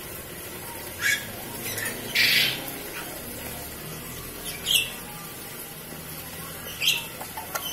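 Four short, high squeaky bird calls spaced one to two seconds apart. The loudest, about two seconds in, is a harsher squawk lasting about half a second.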